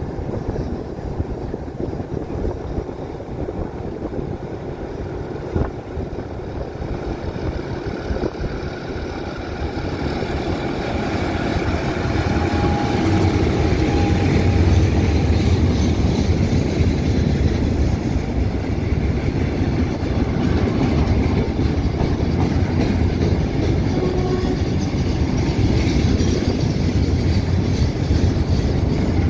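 SRT GE diesel-electric locomotive no. 4040 drawing in with a freight train, followed by its covered boxcars rolling past close by with a steady rumble of wheels on rail. The sound grows louder about ten to fourteen seconds in as the train reaches the platform, then stays loud while the wagons pass.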